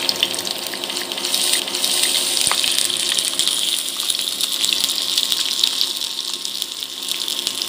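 Chopped garlic sizzling steadily in hot oil in a frying pan.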